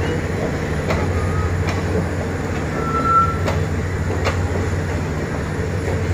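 Passenger coaches of a steam-hauled special train rolling slowly past: a steady low rumble with a few sharp clicks of wheels over rail joints, and a short high wheel squeal about three seconds in.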